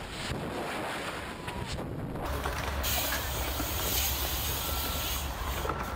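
Wind buffeting the microphone in a skydiving freefall, cutting off abruptly about two seconds in to a steady hiss with a low rumble underneath.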